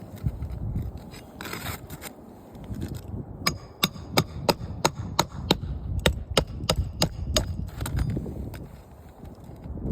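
Hand hammer driving nails during an asphalt shingle repair: a run of about fifteen sharp, evenly spaced strikes, roughly three a second, starting a few seconds in and stopping near the end, over low scraping and handling noise.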